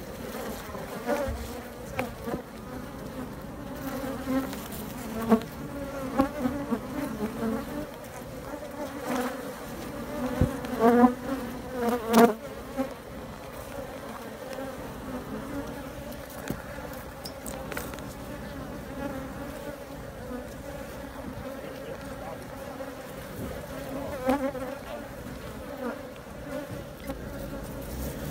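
Africanized honey bees buzzing at the entrance of their colony, a steady hum that swells and wavers in pitch as bees fly close past the microphone. There are a couple of sharp taps about halfway through.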